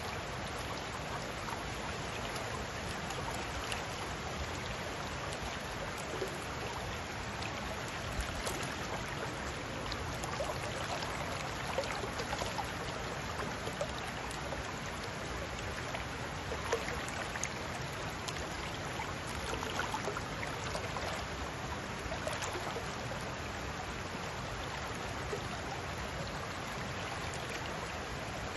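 Shallow, rocky river running steadily, a constant rush of flowing water broken by many small splashes and trickles.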